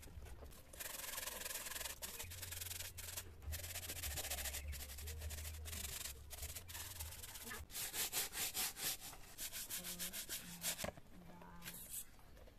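Stiff plastic scrub brush scrubbing a white sneaker wet with detergent water. Long scratchy brushing passes give way, past the middle, to quick back-and-forth strokes of about five a second.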